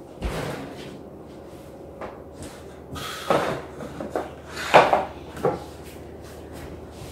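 Wooden cabinet drawers or doors being handled, giving a few separate knocks and bumps, the loudest about two-thirds of the way through.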